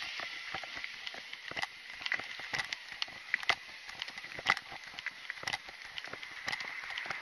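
Footsteps along a concrete sidewalk, heard as irregular light clicks and knocks.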